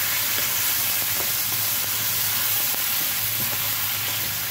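Beef chunks with tomato and onion sizzling in a nonstick wok while a wooden spatula stirs them, with soft scrapes of the spatula on the pan. A steady low hum runs underneath.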